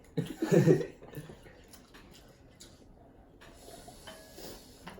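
A person's voice, a brief sound lasting under a second at the start, then low room noise with a few faint ticks.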